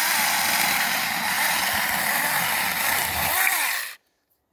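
Saker battery-powered mini chainsaw running and cutting through a pine limb, a loud steady buzz that stops suddenly about four seconds in.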